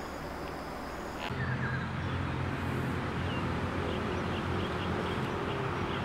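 Steady room hiss with a faint high whine, then, about a second in, outdoor ambience: a steady low rumble with scattered faint bird chirps.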